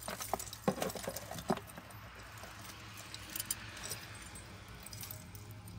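Small metal jewelry chains and pendants jangling and clinking as a tangled necklace is worked loose from a pile of jewelry, with irregular sharp clinks and a soft rustle in the middle.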